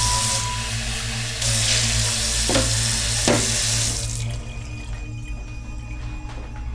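Kitchen tap running into a stainless steel sink as a ceramic mug is rinsed, with two sharp knocks of the mug against the sink about two and a half and three seconds in. The water stops about four seconds in.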